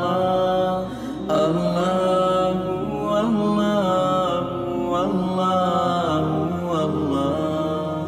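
Background vocal music: a chanted song, one voice holding long notes that slide slowly up and down.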